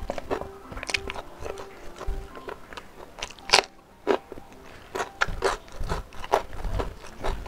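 Close-miked eating: chewing and crunching through smoked beef, rice and raw vegetables, with a string of sharp crunchy bites. The loudest bite comes about three and a half seconds in.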